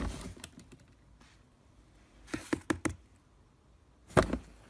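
Cat clambering on a white plastic swing-lid trash can: a series of sharp plastic knocks and clatters, several quick ones in the middle and the loudest about four seconds in.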